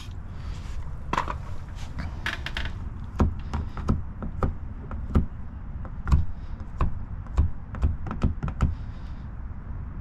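Irregular light clicks and knocks, about one or two a second, from a car's exterior door handle being pulled and let back against the door while fingers press film into the handle cup. A short hiss of a pump sprayer misting tack solution at the start.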